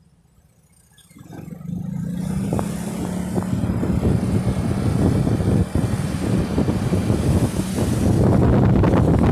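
A motorcycle pulling away and speeding up, its engine rising in after about a second and running steadily, with wind rushing over the microphone that grows louder near the end.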